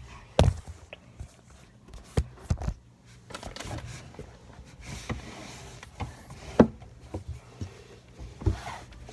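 Scattered thumps, knocks and rustles of a phone being handled and moved about close to the microphone, the loudest thump about six and a half seconds in.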